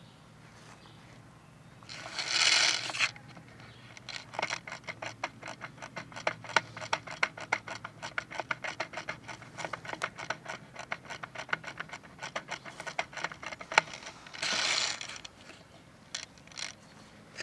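Quick, uneven ratcheting clicks running for about ten seconds, like an airsoft high-capacity magazine being wound by thumb. A short noisy burst of about a second comes before the clicks and another after them.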